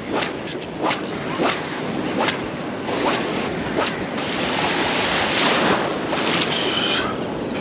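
Ocean surf washing over a shallow reef around a wading angler, with several sharp splashes in the first few seconds and a wave surging up louder about five seconds in. Wind buffets the microphone throughout.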